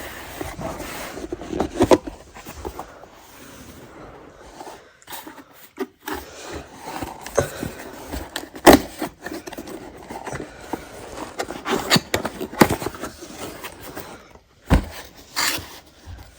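Hands unboxing a desktop phone tripod: irregular scraping and rustling of the packaging, broken by sharp clicks and knocks, the loudest about halfway through.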